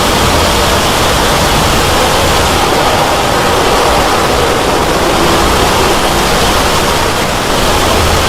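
Loud, steady rushing noise with no clear rhythm or pitch.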